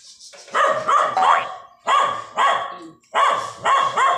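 Dog barking repeatedly, about eight sharp barks in quick pairs and threes.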